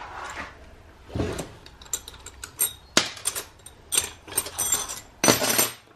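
Metal clinks and knocks from a turbocharger being taken apart by hand: the cast turbine housing shifted against the core and loose housing bolts clinking. A dull knock comes about a second in, then a quick run of sharp, ringing clinks, loudest just after five seconds.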